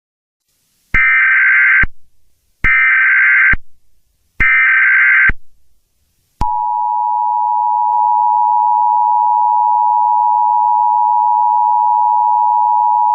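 Emergency Alert System tones: three short bursts of SAME header data, a buzzing digital screech of about a second each, then about six seconds in the steady two-tone attention signal starts and holds.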